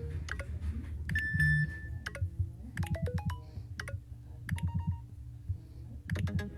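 iPhone iOS alert tones previewing one after another: a string of short synthesized chimes and beeps, each only a fraction of a second to about a second long, with a quick falling run of notes about three seconds in.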